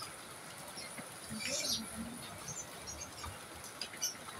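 Steady rain falling, with short high bird chirps scattered through and a brief louder call about a second and a half in.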